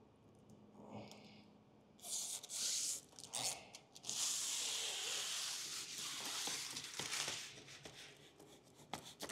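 Clear release liner being peeled off a sheet of window tint film, a crackling tearing noise starting about two seconds in and running for several seconds as the adhesive side is exposed. A trigger spray bottle spritzes the glass a few times near the end.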